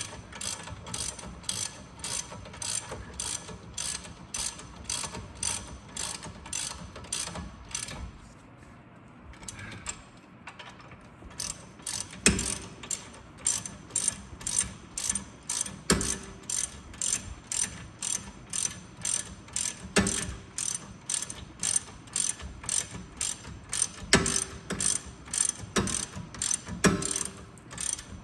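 Hand ratchet clicking in quick, even strokes, about two to three clicks a second, as brake caliper bolts are run down and tightened. It pauses briefly about a third of the way in, and there are now and then louder single knocks in the second half.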